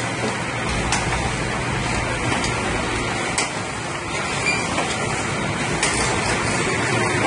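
Paper plate making machine running with a steady mechanical hum from its belt-and-pulley drive, with sharp clicks and knocks now and then as the dies press down.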